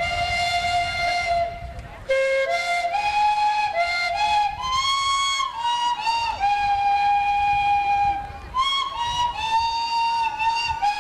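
Steam calliope of ten antique steam whistles, fed by a 1914 Huber 25/55 steam traction engine, playing a tune: a run of whistled notes stepping up and down in pitch, one held for nearly two seconds midway, with short breaks about two seconds in and again about eight and a half seconds in.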